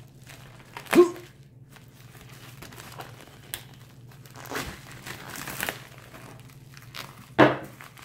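Plastic padded bubble mailer crinkling and rustling as it is handled and torn open, with a stretch of rustling in the middle and two short, louder sharp sounds, one about a second in and one near the end.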